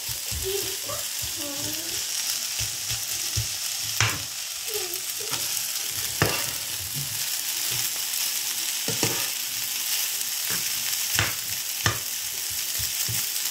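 Fusilli pasta with tuna and egg sizzling in a frying pan as it is stirred with a slotted metal spatula: a steady hiss, with the spatula scraping and knocking sharply against the pan several times.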